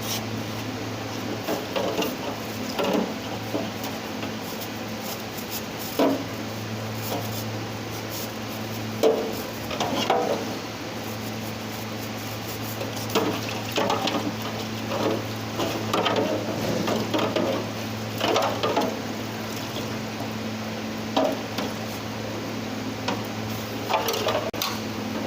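Steady low mechanical hum with irregular clinks and knocks, like metal tools and parts being handled.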